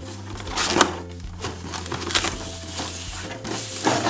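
A cardboard toy box being handled and slid across a hard floor by hand: short scraping, rustling noises, loudest about a second in, again around two seconds, and near the end.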